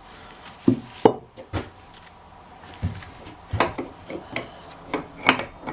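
Steel parts of a two-speed truck rear-axle differential clinking and knocking against each other as they are handled and lifted out: a string of irregular sharp clinks, the loudest about a second in and more of them close together in the second half.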